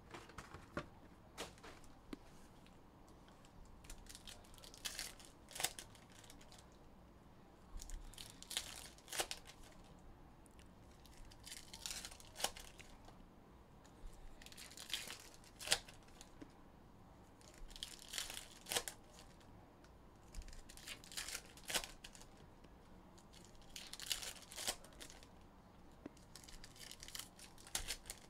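2021 Upper Deck Goodwin Champions trading-card packs being torn open one after another, their foil wrappers crinkling. A short tearing rip comes about every three seconds.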